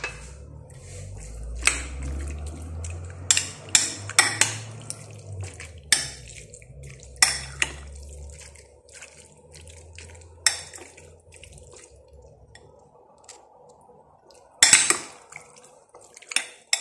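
Scattered clinks and knocks of a utensil against a glass bowl and dishes as cut chicken pieces are mixed with saffron water, with a low rumble through the first half and a louder clatter about fifteen seconds in.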